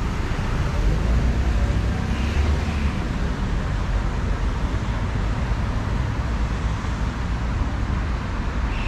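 Steady road-traffic street noise, mostly a low rumble, with a few faint short high chirps about two and a half seconds in.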